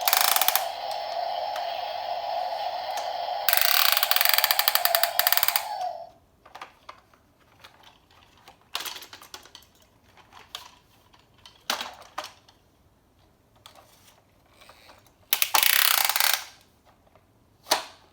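Toy construction vehicle's electronic sound effect from its small speaker, a steady buzzing tone with hiss that gets louder about three and a half seconds in and stops about six seconds in. After that come scattered plastic clicks and rattles of the toy, with two short louder noisy bursts.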